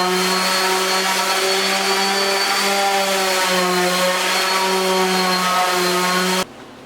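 Electric woodworking machine running with a board being fed through it: a steady motor hum with a wavering pitch over a noisy cutting sound. It cuts off abruptly near the end.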